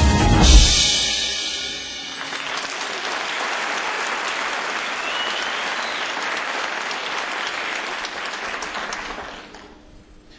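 Band ends the song on a final chord with a drum and cymbal hit that rings out for about two seconds. An audience then applauds steadily, with one short rising whistle in the middle, and the applause fades out near the end.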